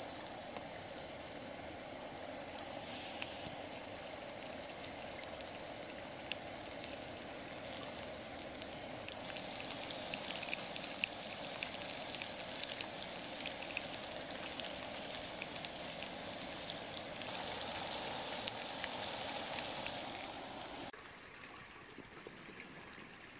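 Battered yellow perch pieces deep-frying in hot Crisco shortening in a skillet: a steady sizzle with dense crackling and popping. It cuts off suddenly near the end to a quieter hush.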